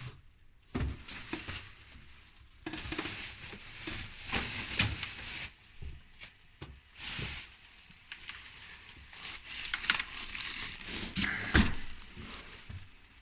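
Plastic bags rustling and crinkling, with scattered knocks, as bagged items are handled and set down.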